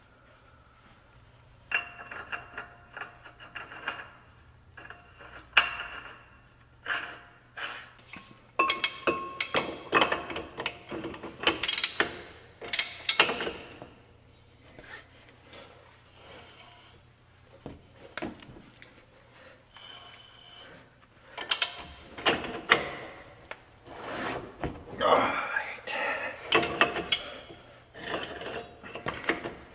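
Irregular metal clinks and clanks as a spindle nut and a large socket on a breaker bar are fitted and turned on a heavy truck's rear wheel hub. The clatter comes in two spells, about a third of the way in and again past two-thirds, with quieter handling between.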